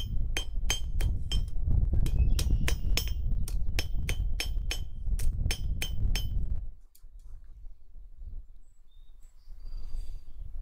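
Blacksmith's hammer striking a hot steel bar over the edge of an anvil, about four blows a second, each with a short metallic ring, as a leg of a tripod base is bent to its angle. The hammering stops a little past halfway through.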